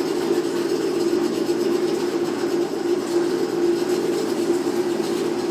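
Steady mechanical drone of a heater's fan running, one even hum with no change.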